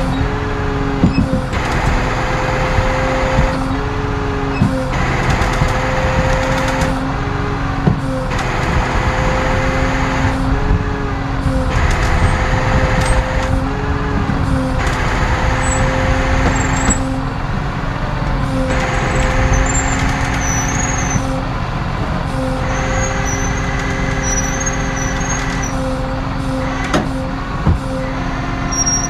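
A heavy truck's engine runs steadily, with a hum that dips and shifts every two to three seconds as if under changing load. A faint high squeal wavers in and out near the end.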